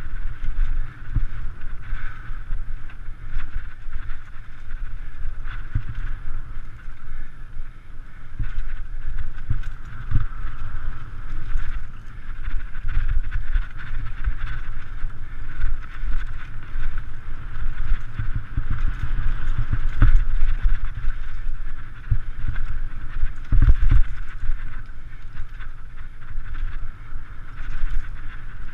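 Mountain bike descending a rough dirt trail: wind rumbling on the action camera's microphone, with the bike's knocks and rattles over bumps throughout and a few harder thuds.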